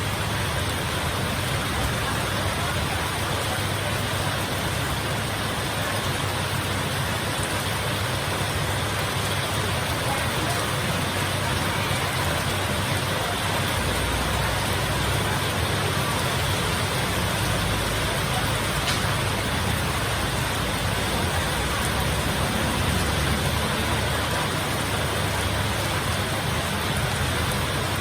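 Heavy rain falling steadily as a dense, even hiss, with a low, uneven rumble of strong wind underneath.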